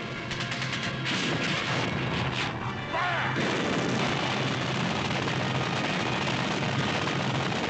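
A rapid burst of gunfire, then heavy explosions in water that throw up spray and merge into one continuous blast over steady film-score music.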